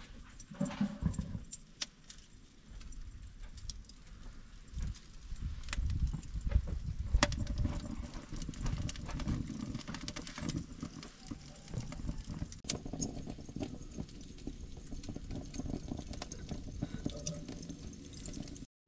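Lump charcoal burning in a jerk pan, crackling and popping in scattered sharp snaps over a low, uneven rumble.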